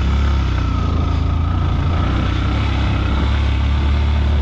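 Motorcycle engine running steadily with a low drone while the bike is ridden, with road noise over it.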